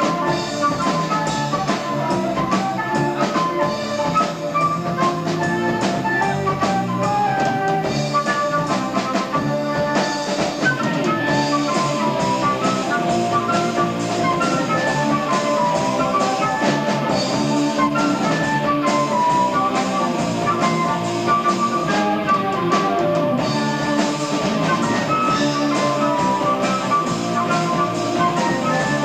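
Progressive rock band playing live, drums and electric guitar under a dense run of melodic notes, heard through an amateur tape recording with thin low bass and a dull top.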